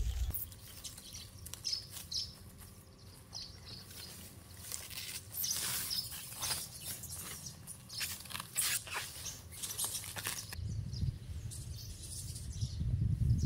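Plastic stretch wrap crackling in short bursts as it is pulled off the roll and wound around a tree trunk, with birds chirping. The crackling stops a little over ten seconds in, and a low rumble follows.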